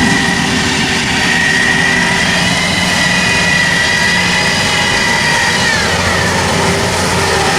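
Rice combine harvester's diesel engine running steadily, with a high whine over it. The whine drops in pitch about six seconds in.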